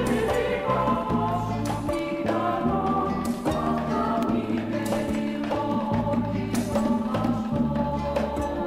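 Orchestral music: held melody notes over a bass line that moves to a new note about every second.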